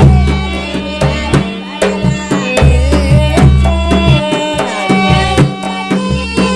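Rajasthani devotional folk music: a steady hand-drum beat under a wavering melody line, over a deep sustained bass.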